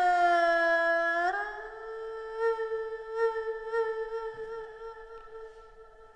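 Erhu bowing one long sustained note that slides up in pitch about a second in, then is held with a slight vibrato and slowly fades away.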